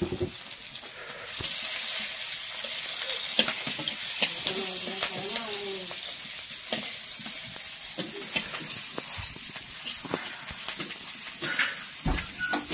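Food sizzling in hot oil in a steel kadhai, with a metal spatula scraping and tapping against the pan as it is stirred. The sizzle grows louder about a second and a half in.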